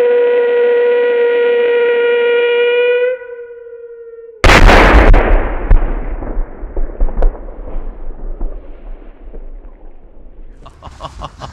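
Pyrotechnic whistle burning on the ground with one steady high note, which fades out about three seconds in; about a second later a single very loud firework bang, followed by crackling and echo that die away over several seconds, with a few sharp snaps near the end.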